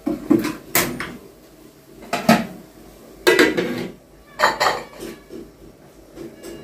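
Aluminium cooking pot and its lid clattering on a gas-stove grate as the pot of milk is set to heat and covered: about five separate knocks and scrapes, some with a short metallic ring.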